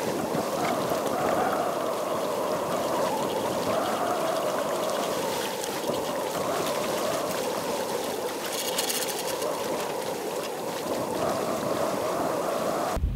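Shallow water trickling and lapping steadily, with a brief splash about nine seconds in.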